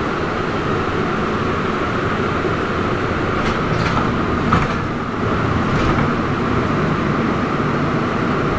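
Interior running noise of a moving Trolza-5265 Megapolis trolleybus: a steady drone of the electric drive and tyres, with a few short knocks and rattles a little past the middle.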